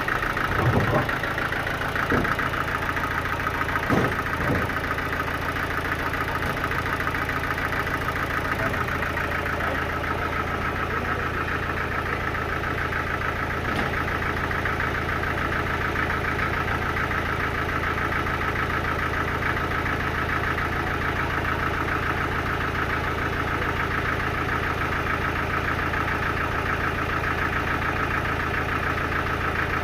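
Sawmill engine running steadily, with a constant high whine on top of its drone. A few knocks come in the first five seconds.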